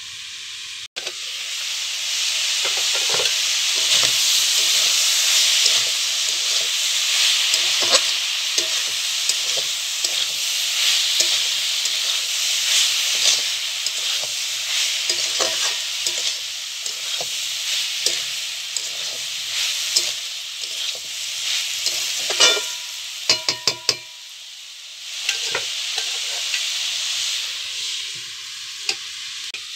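Jackfruit curry sizzling in a metal kadhai while a spatula stirs and scrapes it, with frequent clicks and knocks against the pan. A quick run of sharp clacks comes about three-quarters of the way through, after which the sizzle is quieter.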